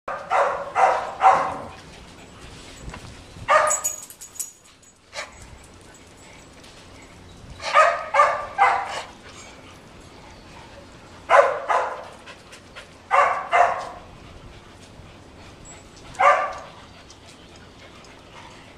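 A dog barking in short groups of one to three barks, about eleven barks in all, with pauses of a few seconds between groups.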